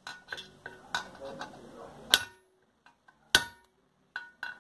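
Hammer blows driving a ball bearing into its seat in a Sundown MAX 125's aluminium engine case. Sharp metal knocks come about a second apart, with a few lighter taps near the end. The blows are softened by the wooden bench under the case.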